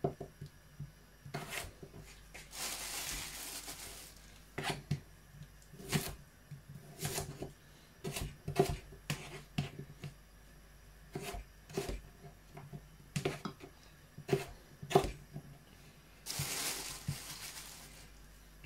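Kitchen knife slicing red potatoes into chips on a plastic chopping board: irregular knocks of the blade through the potato onto the board. There are two short spells of rustling, about three seconds in and near the end.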